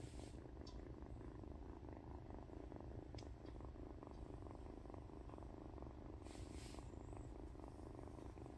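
Kitten purring steadily while its head is stroked and scratched, with a brief soft rustle about six seconds in.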